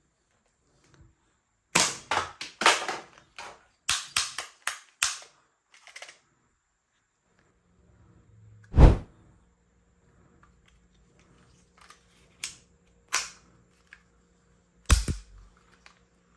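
Toy guns being handled and fired: quick clusters of sharp mechanical clicks and snaps about two and four seconds in, then single sharp shots spaced a few seconds apart. The loudest comes about nine seconds in.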